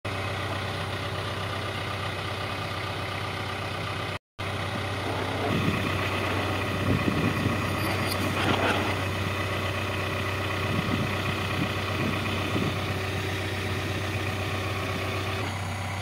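Diesel engine idling steadily, from the backhoe loader or the recovery truck carrying it. Irregular low knocks and clanks sound over the idle from about six seconds on, and the sound cuts out briefly about four seconds in.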